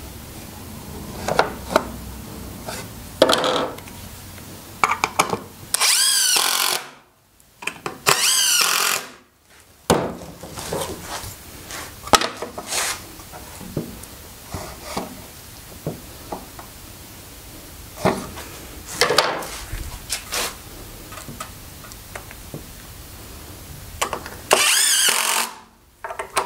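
Power drill driving screws into a wooden 2x4 frame in three bursts of about a second each, its motor whine wavering in pitch. Short knocks and clatter of wood and tools come in between.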